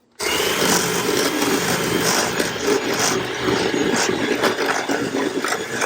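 Electric mixer switched on and running steadily, beating eggs into creamed butter and sugar for cake batter. It starts abruptly just after the beginning.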